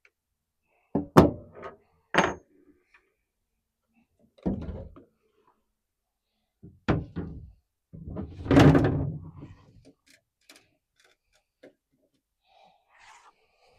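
A series of knocks and thunks on a pickup's tailgate as the license plate and its parts are refitted: about five separate knocks, the loudest about a second in, and a longer, heavier clattering thud about eight and a half seconds in.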